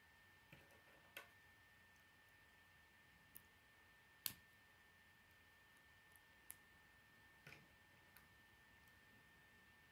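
Small K'nex plastic pieces clicking as they are handled and snapped together: about eight short, faint clicks at irregular intervals, the sharpest a little past four seconds in, over a faint steady high tone.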